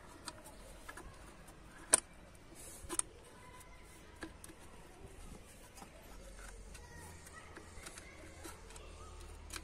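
Faint clicks and taps of hands and a small metal screw against engine parts as the stubborn thermostat-housing screw is worked free. A sharp click comes about two seconds in, and another about a second later.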